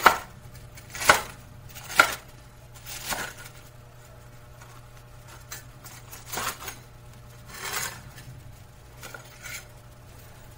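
Kitchen knife cutting through fried, breaded chicken cutlets on a wooden cutting board: three sharp knocks of the blade on the board in the first two seconds, then a handful of softer, longer cuts spaced out after that.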